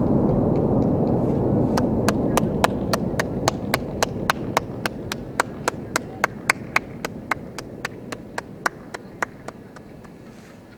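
The rolling rumble and echo of a fireworks finale barrage slowly dying away. From about two seconds in, an even series of sharp claps or clicks comes at about three and a half a second and fades out near the end.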